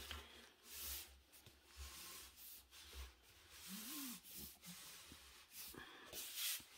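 Faint, intermittent rustling and rubbing of hands handling a rolled diamond-painting canvas in its paper wrapping, loudest shortly before the end.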